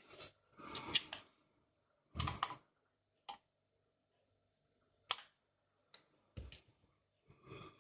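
Irregular clicks, knocks and short scrapes of a plastic shower head being handled, about eight separate sounds with pauses between them, the longest a brief scrape about a second in.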